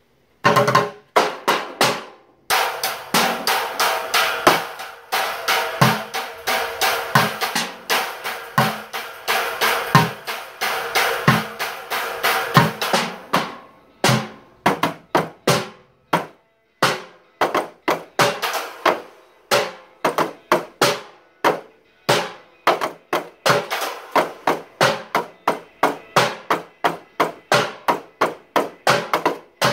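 Drums played with sticks: a dense run of fast strokes for the first half, then separate, evenly spaced beats in a steady rhythm.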